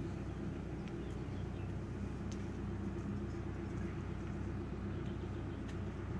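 A vehicle engine idling steadily, a low even hum with a few faint ticks over it.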